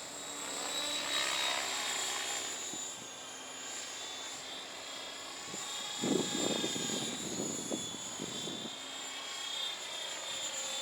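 Align T-Rex 700E electric RC helicopter in flight: a high-pitched whine from the electric motor and drivetrain, with the rotor's sound, rising and falling in pitch as it manoeuvres. For a couple of seconds past the middle, a rough low gust of wind buffets the microphone and is the loudest sound.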